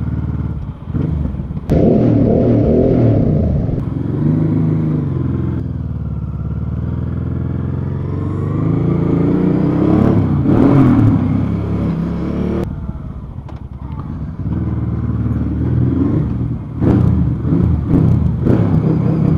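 Motorcycle engine running under way, its pitch rising and falling as it accelerates and eases off. The sound changes abruptly a few times where separate clips are cut together.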